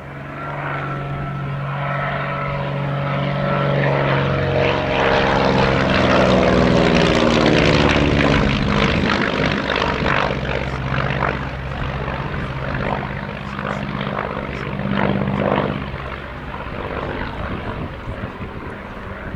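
North American Navion's Lycoming O-435 flat-six engine and propeller in a flypast. The engine note grows louder, then drops in pitch as the aircraft passes, about seven seconds in, and carries on more faintly.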